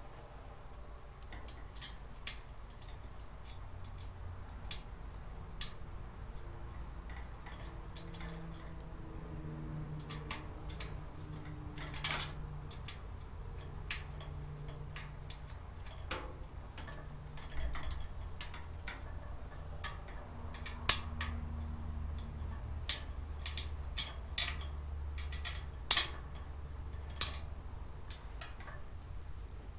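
Parts of a 3-tier storage cart being handled and fitted together during assembly: irregular sharp clicks and clinks of hard pieces knocking against each other, a couple of dozen over the stretch.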